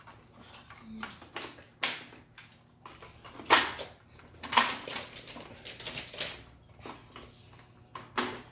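Hard plastic toy track pieces being handled and snapped onto a plastic tower. A handful of sharp clicks and knocks, the loudest about three and a half and four and a half seconds in, with light plastic rattling between them.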